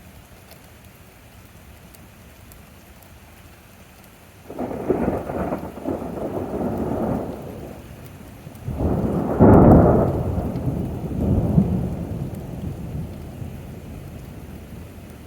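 Thunder over steady rain: a sudden rumble about four seconds in lasting a few seconds, then a louder peal about nine seconds in that rolls away gradually.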